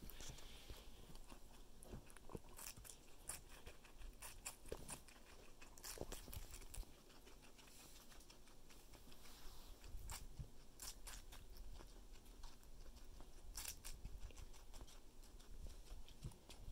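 Guinea pig chewing and biting watermelon: faint, irregular wet crunching clicks.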